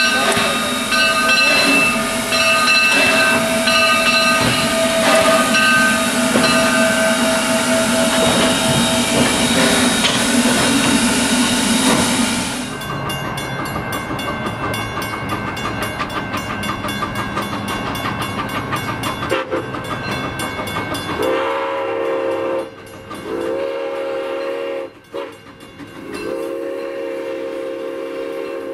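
Steam locomotive standing with steam up, hissing steadily over a steady hum. It cuts off abruptly to a quieter approaching steam train, whose whistle then blows three blasts, each longer than the last.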